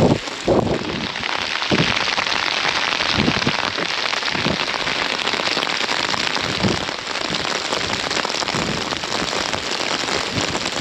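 Steady rain falling, a dense even hiss, with a few dull low thumps, the loudest right at the start and about half a second in.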